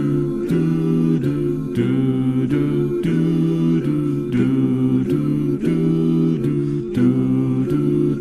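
Musical intro without words: sustained chords changing about twice a second, each change starting sharply.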